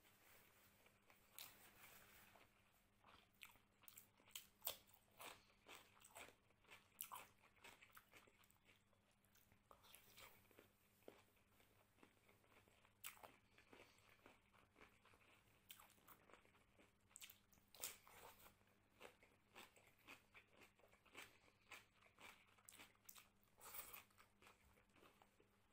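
Close-miked eating of mutton curry and rice by hand: chewing with wet mouth clicks and smacks, and fingers mixing and squeezing rice on the plate. The clicks come irregularly, several a second at times, and are fairly quiet.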